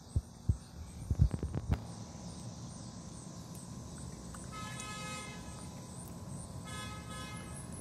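A few low thumps close to the microphone in the first two seconds, as the cat chews grass, then two short horn toots, each under a second and about two seconds apart, over a steady low hum.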